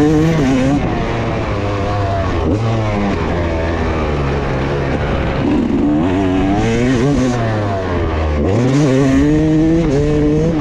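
Motocross bike engine heard on board during a lap, its pitch climbing under throttle and falling off again several times, with the deepest drop about eight seconds in.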